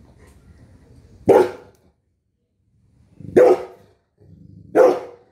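A nine-month-old Rottweiler barking three times, single short barks about one and a half to two seconds apart.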